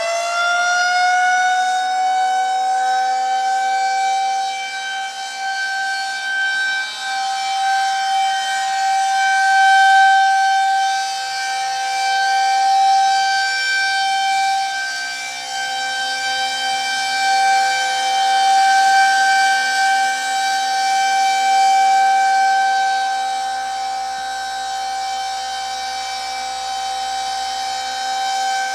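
Federal Signal 2001-130 outdoor warning siren sounding the steady alert signal: one held, unwavering pitch with strong overtones, its loudness swelling and fading slowly as the siren rotates.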